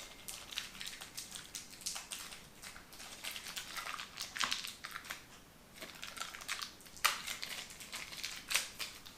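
Light, irregular clicks and taps of small plastic parts and a tool being handled while a replacement Joy-Con thumbstick module is fitted into the controller, with a sharper click about seven seconds in.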